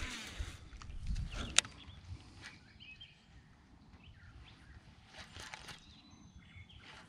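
Quiet outdoor ambience by a pond with faint bird chirps, a low rumble of wind or handling, and one sharp click about a second and a half in.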